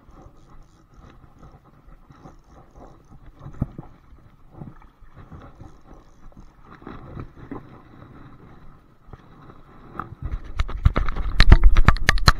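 Hooked coho salmon thrashing at the surface of shallow river water as it is played toward the bank, with scattered splashes and knocks that build to a loud rapid flurry of splashes near the end.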